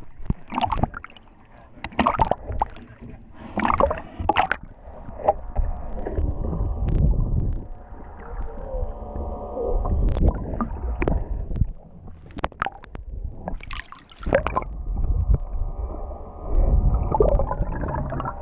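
Sounds aboard a fishing boat at sea: a low hum with steady pitched tones comes and goes, along with water sloshing and sharp knocks and clatter, most of them in the first few seconds and again past the middle.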